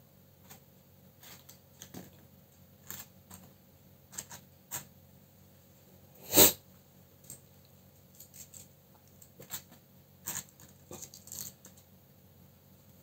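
Small paper cutouts being handled and set down on a tabletop: scattered light taps and rustles, with one louder sharp tap about six seconds in.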